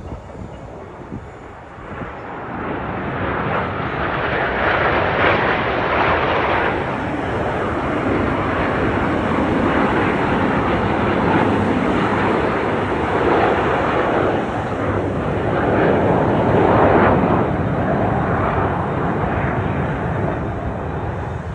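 Jet engines of a close formation of Frecce Tricolori Aermacchi MB-339 jets flying past in a display. The noise builds about two seconds in and stays loud, swelling twice as the formation sweeps by.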